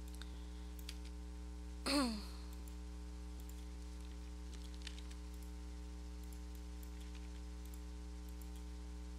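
Faint computer mouse clicks over a steady electrical mains hum, with a short voiced 'hmm' about two seconds in.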